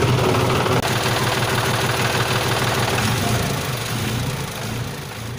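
Engine sound effect: a motor running steadily with a low hum, fading down over the last second or so.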